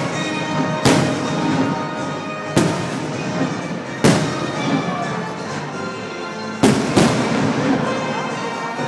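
Aerial fireworks shells bursting in the sky: five sharp booms, the last two in quick succession, over a continuous crackle. Music plays underneath.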